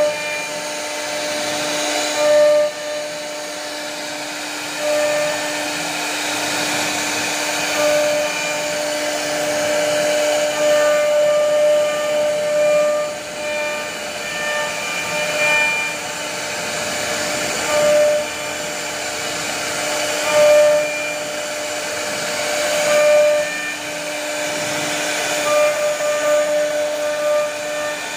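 CNC router spindle whining steadily as its bit carves a floral relief into a wooden board, the tone shifting and swelling briefly every few seconds as the cutter moves through the wood.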